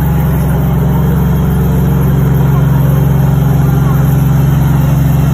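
T-84 Oplot main battle tank's 6TD-2 two-stroke opposed-piston diesel running as the tank drives slowly past, a loud, steady, deep drone that does not change.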